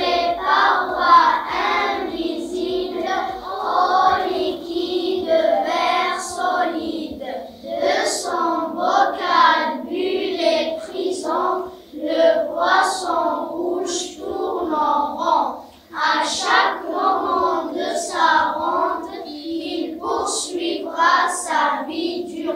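A class of young children reciting a French poem together in unison, their voices in phrases with short breaks between lines.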